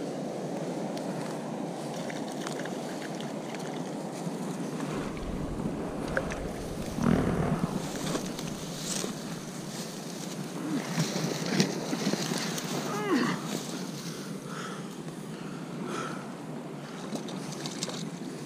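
Steady wind and water noise while a hooked trout is played, with a louder burst of knocks and rumble about seven seconds in and a few short squeaks a few seconds later.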